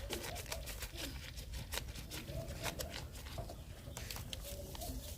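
Wood fire crackling under a cooking pot, irregular sharp pops and snaps over a low steady rumble.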